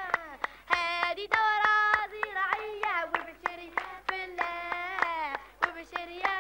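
Children singing a song while clapping a steady beat, about three claps a second.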